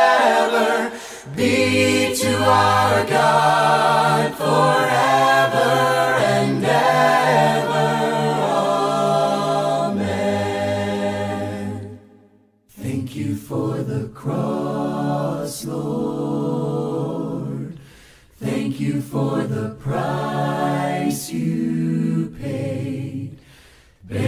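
A cappella vocal group singing a hymn in several-part harmony, with no instruments. About halfway through the voices stop for a moment, then start again on the next song.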